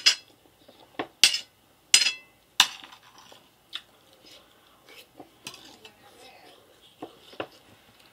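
Metal fork clinking and scraping against a plate while scooping up macaroni goulash: five sharp clinks in the first three seconds, then softer, sparser taps.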